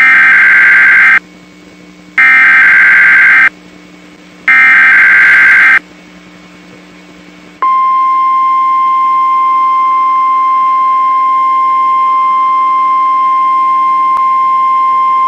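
NOAA Weather Radio Emergency Alert System signal for an Evacuation Immediate alert. It starts with three loud, screeching bursts of SAME digital header data, each about a second long with about a second between them. A few seconds later comes the steady single-pitch 1050 Hz warning alarm tone, which holds unchanged.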